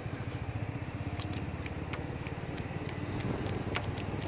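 A steady low rumble of background noise, with scattered faint clicks and smacks from a soft boiled peanut being shelled and chewed.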